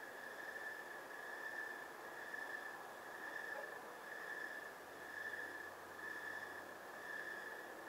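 Night insects trilling in chorus: a steady high-pitched trill that swells and fades about once a second, over a faint hiss.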